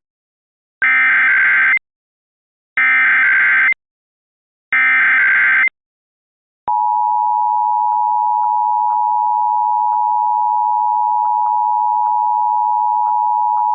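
Emergency Alert System tones: three bursts of SAME header data, each about a second long, then the steady two-tone EAS attention signal starting about seven seconds in.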